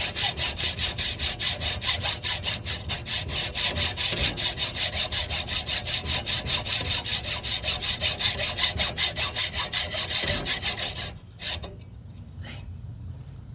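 Hacksaw sawing back and forth on a broken steel wheel stud in a wheel hub, in fast, even strokes that stop about eleven seconds in, followed by a few light clicks.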